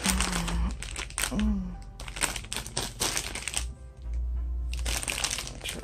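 Plastic candy-bag wrapper crinkling and crackling as it is handled, in two long bursts with a short pause between, over quiet background music.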